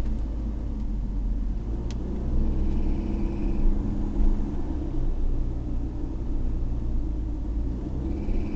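Car driving, heard from inside: a steady low rumble of road and engine, with one sharp click about two seconds in and a faint high tone around three seconds in. The car has an abnormal noise that its owner hears throughout the drive.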